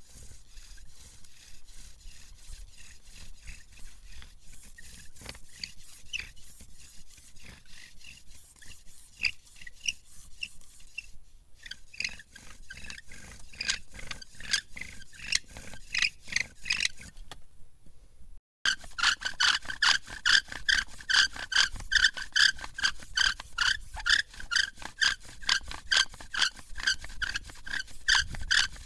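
Hazel bow drill in use: the spindle grinds and squeaks in the hearth board with each quick back-and-forth stroke of the bow. The strokes stop briefly about two-thirds of the way through, then resume louder, with a sharper squeak on every stroke.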